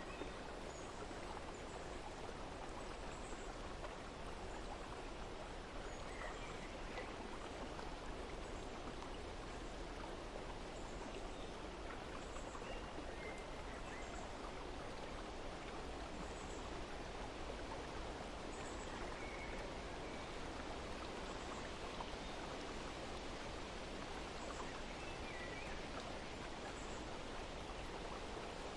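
Steady, even rush of flowing water, with faint short bird chirps now and then.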